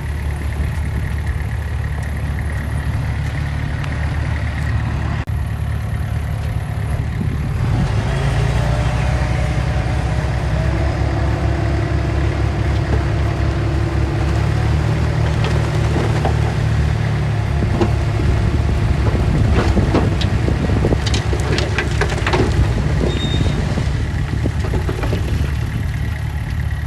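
Diesel engine of heavy earthmoving machinery running steadily, working harder from about a quarter of the way in, with several sharp clanks about two-thirds of the way through.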